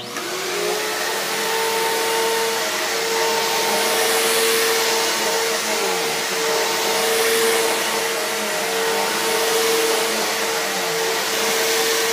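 Eureka Boss vacuum cleaner switched on and running, a steady motor whine with a high tone held throughout and brief dips in pitch around the middle and near the end as it works.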